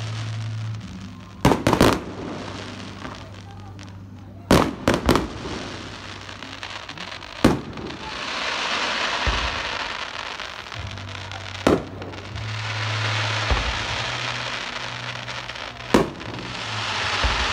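Fireworks exploding overhead: sharp bangs every few seconds, some as quick double or triple cracks, with crackling hiss from the bursts filling the gaps between them.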